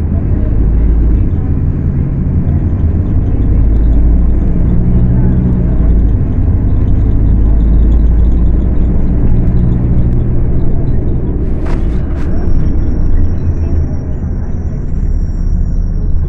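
Scania K250UB city bus's diesel engine running hard under load, its revs rising and falling as the bus drives and changes gear. Two sharp knocks come about twelve seconds in, followed by a thin high squeal near the end.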